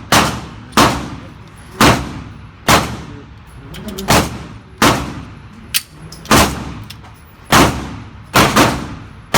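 Pistol-range gunfire: about a dozen shots at uneven spacing, roughly one a second or a little faster, some close together and a few fainter, each with an echoing tail.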